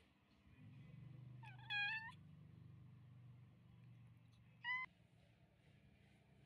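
Newborn kittens mewing twice: a thin, high mew about a second and a half in, and a shorter one near five seconds, over a faint low rumble.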